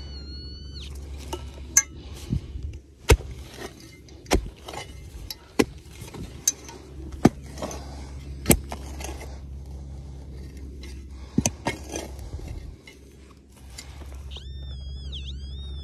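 A digging spade cutting and scraping into stony soil, with a dozen or so sharp metallic clinks as the blade strikes stones. A warbling metal-detector target tone sounds at the start and again near the end, as the hole is checked for the target.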